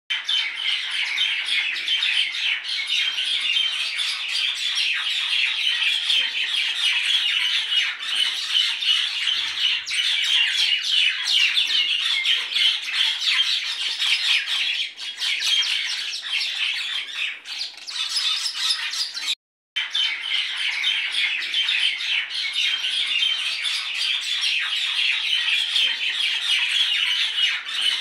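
Many birds chirping and chattering together in a dense, continuous flock chorus. It cuts out for a moment about two-thirds of the way through.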